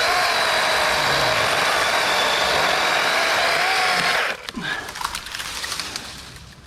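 Dewalt 20V cordless electric chainsaw running at speed, cutting a dead branch, then stopping suddenly about four seconds in. A few knocks and rustles follow.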